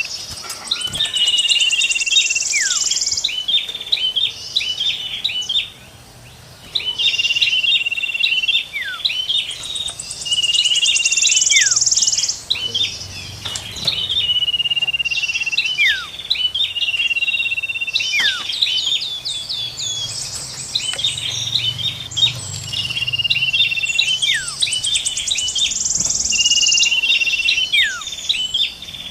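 Songbird calls: a held high whistle, rapid chipping notes, a fast buzzy trill higher still, and sharp falling notes. The same sequence comes round about every nine seconds, like a looped bird-lure recording.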